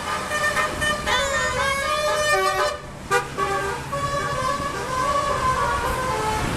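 Basuri telolet multi-tone bus horn playing a tune: held horn notes that step up and down in pitch, with a short break about three seconds in.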